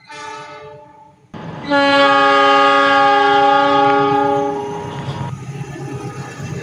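A train locomotive sounds its horn: one short blast, then a loud, long blast of about four seconds. The low rumble of the passing train carries on after it.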